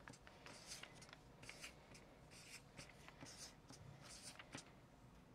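Faint strokes of a felt-tip marker on chart paper: a run of short, separate scratches as the marker draws small marks.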